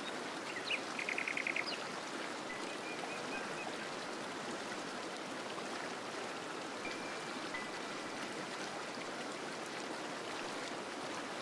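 Steady rush of a running stream with small birds calling over it: a quick trill of about eight notes about a second in, then a few thin whistled notes.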